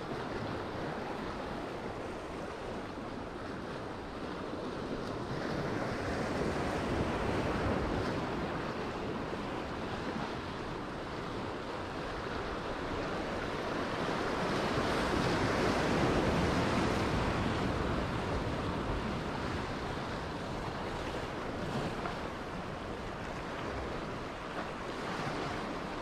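Sea waves washing and breaking over the rocks close below, with wind buffeting the microphone. The surf swells louder twice, about a quarter of the way in and again around the middle.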